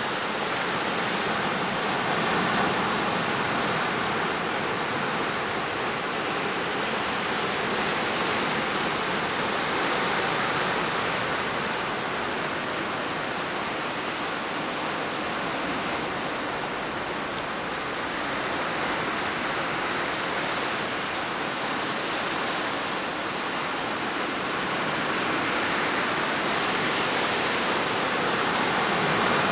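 Steady rushing noise of the sea surf, swelling and easing slowly; no bird calls can be heard.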